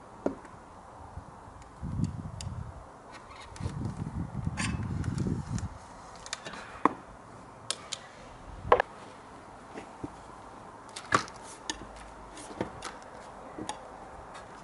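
Flat screwdriver prying the rubber glazing seals out of an aluminium window sash. There are low rubbing sounds over the first six seconds, then a scatter of sharp clicks and ticks of the tool on the metal frame, loudest about seven, nine and eleven seconds in.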